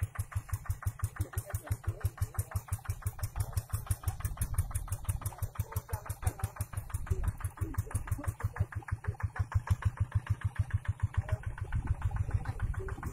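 Single-cylinder diesel engine of a two-wheel hand tractor running steadily, with a rapid, even chugging beat.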